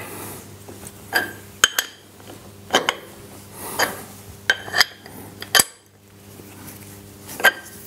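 A socket wrench clinking against the steel clamping bolts of an Abene VHF-3 milling head as the bolts are tightened: sharp metallic clinks with a brief ring, about one a second, over a low steady hum.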